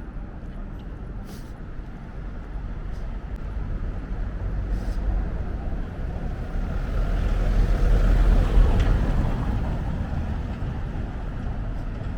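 A motor vehicle drives past on the street, its engine and tyre noise swelling to a peak about eight seconds in and then fading.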